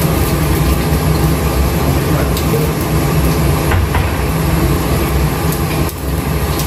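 Steady low drone of a kitchen range hood's exhaust fan running, with the gas burner lit under a wok of heating oil. A few faint clicks come through, and the drone dips briefly near the end.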